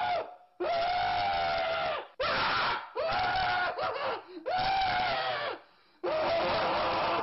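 An animated character's voice screaming over and over: about six high, held screams, each around a second long, with short breaks between them.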